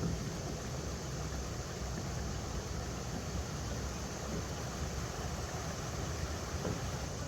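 River water flowing steadily over rocks: an even rushing noise with a low rumble underneath.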